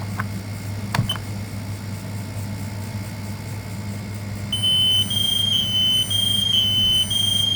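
A sharp click about a second in as the Kidde i12010SCO smoke/CO alarm's test button is pressed, then about four and a half seconds in the interconnected Kidde alarms start sounding: a loud, high-pitched beeping in back-to-back tones with short breaks, at slightly different pitches from more than one alarm.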